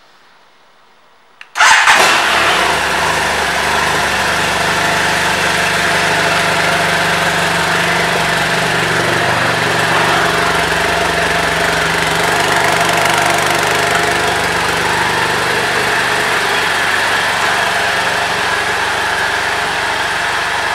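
A 2017 BMW F 800 GS's parallel-twin engine being started about a second and a half in, catching at once, then idling steadily.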